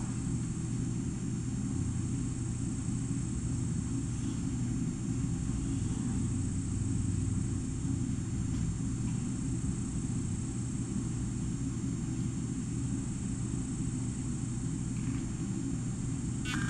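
Steady low hum and rumble with a faint high whine above it, unchanging throughout.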